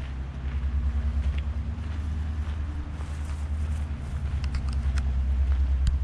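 A steady, low engine rumble running throughout, with a few light clicks near the end.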